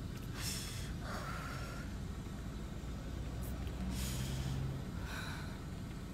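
A woman crying: three short sniffs and shaky, gasping breaths, a couple with a brief high squeak in them.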